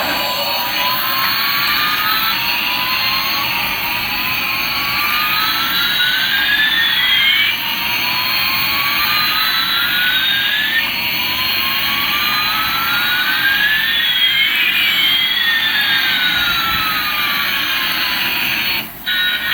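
Jet-engine sound effect from a toy Airbus A380: a steady jet hiss with a whine that rises over and over, every few seconds, and one falling whine near the end.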